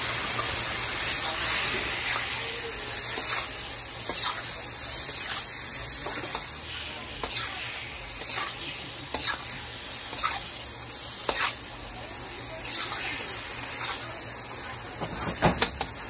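Onions and garlic frying in hot oil in a pan: a steady sizzling hiss, with a cooking spoon scraping and knocking against the pan several times, sharpest near the end.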